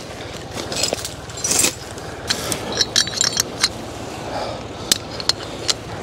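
Sharp metallic clinks and jingles, a quick cluster in the middle and a few single clinks near the end, over the steady idle of a Güldner G30 tractor's diesel engine.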